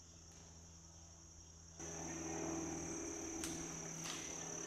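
Steady high-pitched chorus of insects in woodland, faint at first and louder from about two seconds in.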